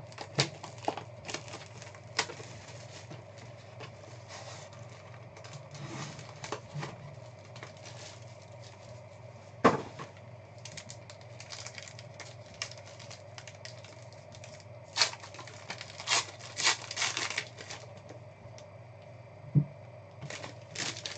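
Plastic shrink-wrap crinkling and tearing off a trading-card box, with scattered clicks as the box is opened and the cards are handled. A sharp knock comes about ten seconds in, a burst of crackling at about fifteen seconds, and a dull thump near the end.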